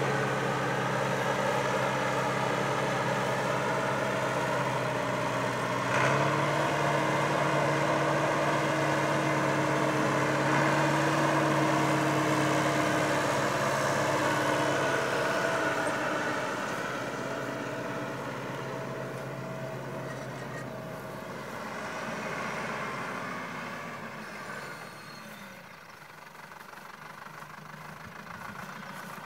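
Farm tractor engine running steadily as it pulls a round baler: a low, even drone that fades as the tractor moves away about two-thirds of the way in and grows louder again near the end as it comes back.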